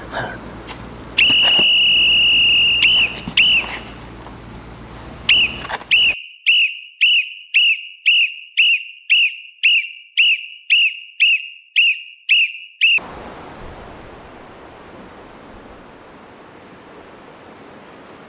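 A loud, steady, high whistle tone held for about a second and a half, a few short blips, then a run of short whistle notes about two a second for some seven seconds, each note curving in pitch. It stops suddenly and gives way to a steady rushing noise.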